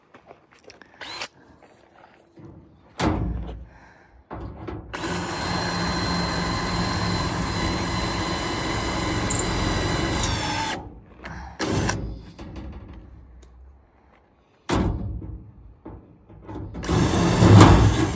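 A power drill running steadily for about six seconds, drilling through sheet metal. Sharp knocks come before and after it, the loudest near the end.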